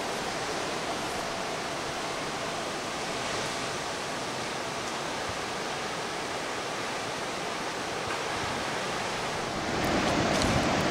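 Ocean surf breaking below, heard as a steady rushing wash. About ten seconds in it gives way to louder, gusty wind buffeting the microphone.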